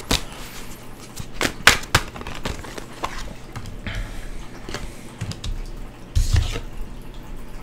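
Tarot cards being handled, drawn and laid down: scattered soft clicks and taps, with a louder rustle a little after six seconds.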